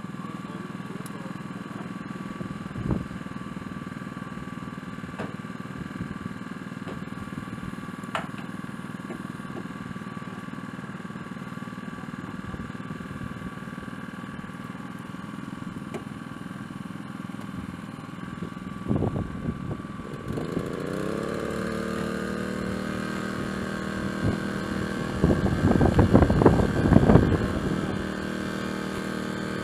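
An engine running steadily, with a few clicks. About two-thirds of the way in, a second engine starts and rises in pitch, then settles into a louder steady run, with a stretch of louder, uneven noise near the end.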